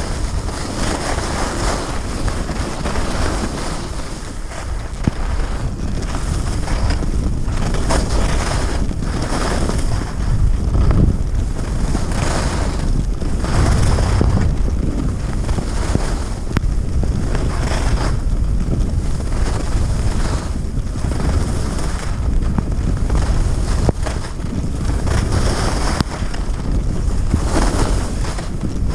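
Wind rushing over a GoPro's microphone as a skier descends at speed, with the skis' edges scraping and hissing on the snow in repeated turns, swelling about every second or two.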